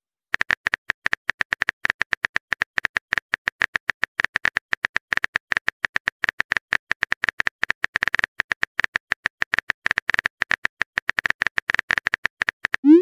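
Rapid keyboard-typing clicks, a chat-app sound effect, several a second, steady throughout, each with a short bright tick. A short rising whoosh right at the end, as the message is sent.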